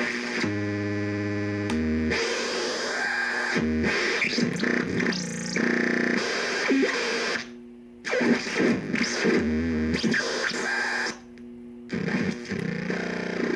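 Harsh electronic noise synth played by joystick: buzzing pitched tones that jump abruptly between notes, mixed with hiss and a pitch sweep, cutting out briefly twice in the second half.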